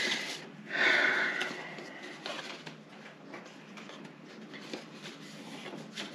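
Paper and card stock being handled and pressed into place: faint rustling and light taps, with a louder brief rustle about a second in.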